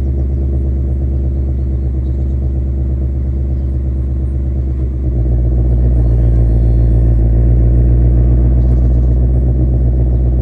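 2024 Ford Mustang Dark Horse's 5.0-litre V8 idling through its quad-tip exhaust with a steady low rumble, still cold from a morning cold start. About five seconds in, the exhaust note grows louder and stays up.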